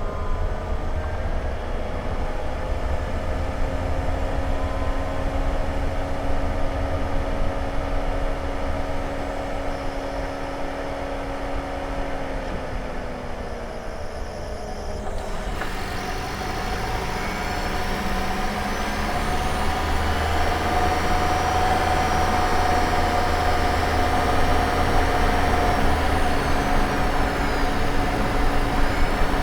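Honda ZR-V's engine bay heard from a microphone inside it: the running drivetrain gives a steady low rumble with several steady tones. The tones slide down in pitch about halfway through; then more hiss comes in and a stronger, higher tone holds to the end. This is the abnormal noise the owner is chasing and suspects comes from the engine bay.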